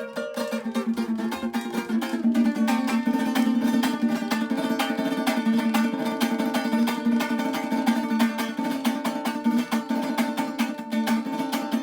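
Venezuelan concert cuatro, a small four-string guitar-family instrument, strummed in a quick, steady rhythm with ringing chords.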